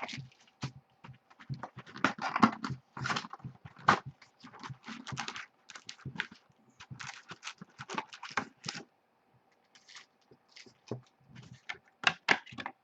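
Irregular clicks and crinkly rustles from hands handling objects, coming in uneven clusters with short pauses, over a faint steady hum.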